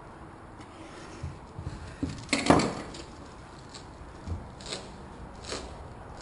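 A few scattered metallic clinks and knocks from hand tools being handled, the loudest about two and a half seconds in.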